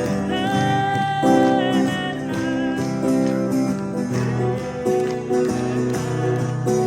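Live acoustic guitar music without singing: the instrumental playout after the song's last sung line, a lead melody with sliding notes over the accompaniment.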